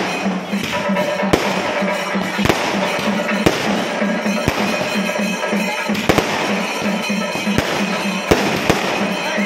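Aerial fireworks bursting overhead: a continuous crackle of exploding shells, with sharp bangs at irregular intervals about once a second. Music with a pulsing beat plays underneath.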